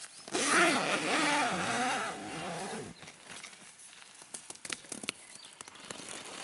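A motor running with a wavering pitch, cutting off about three seconds in, followed by scattered light taps and clicks.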